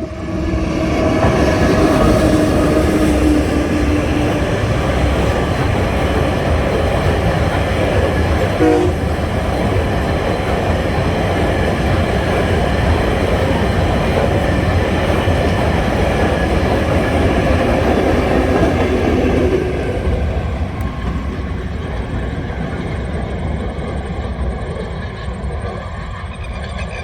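TasRail diesel locomotive TR09 hauling a cement train past at close range: engine and wheels running loudly on the rails, with a steady pitched note in the first few seconds. The noise eases about twenty seconds in as the train moves on.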